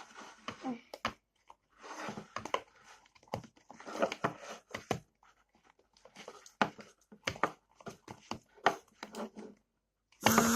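Freshly mixed PVA glue, clear shampoo and borax slime being stirred and squished by hand or spoon: irregular short bursts of wet, sticky squishing with sharp little clicks.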